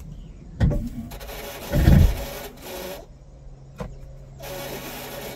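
Busted rear wiper motor of a Jeep Grand Cherokee WJ failing its test: scraping and rubbing with a couple of knocks and a heavy thump about two seconds in, then a steady low hum. The motor does not carry the wiper through its sweep.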